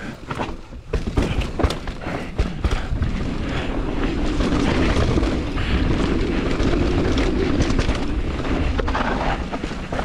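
Mountain bike riding fast down a rough, rocky trail: tyres rumbling over dirt and rocks, the bike rattling, and wind buffeting the microphone. There are sharp knocks over the first couple of seconds, then a steadier rush.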